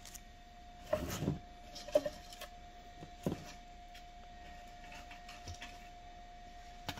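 Holly and fir foliage on a moss garland ring rustling as it is handled and wire is tucked into the base, with a few short crackles and knocks in the first three seconds or so, over a faint steady hum.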